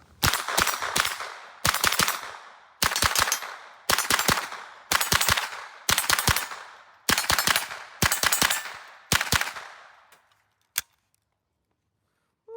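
.22 LR AR-15 pistol with a CMMG conversion kit and a Franklin Armory binary trigger firing quick strings of shots. There are about nine strings, one roughly every second, each with several rapid cracks and a short echo, and then a single last shot near the end.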